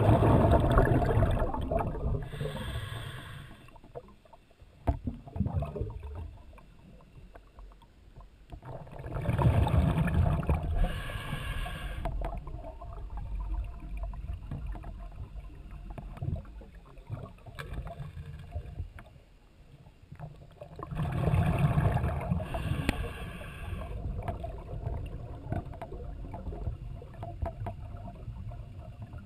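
A scuba diver breathing underwater: three exhalations about eleven seconds apart, each a two-to-three-second burst of gurgling regulator exhaust bubbles, with a quieter steady hiss between them.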